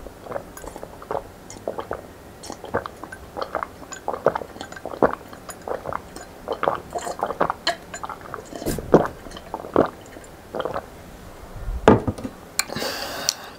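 A person gulping a drink from a glass mug, a long run of short swallows at an uneven pace. Near the end comes a single knock, then a brief rustle.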